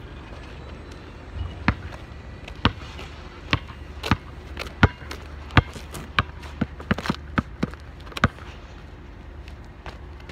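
Basketball bouncing on asphalt: a string of sharp bounces at uneven spacing, the loudest near the middle.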